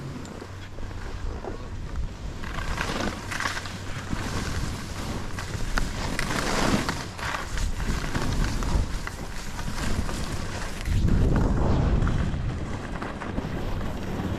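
Skis swishing and sliding through fresh powder snow, with wind rushing over the microphone; the noise swells and eases several times.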